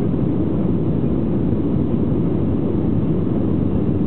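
Cabin noise of an Airbus A320-family jet on its takeoff roll: the engines at takeoff thrust and the runway rumbling under the wheels, a loud, steady, deep rumble.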